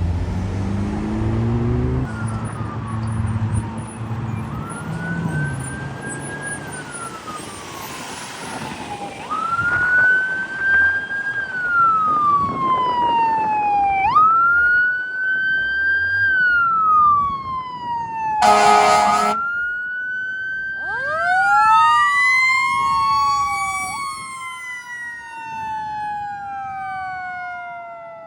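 Sirens of a fire department ambulance and fire engine responding to a call, wailing up and down in slow repeating cycles over a heavy diesel engine rumble at first. A little past halfway comes one short air-horn blast. Soon after, a second siren winds up from low and the two wails overlap, fading near the end.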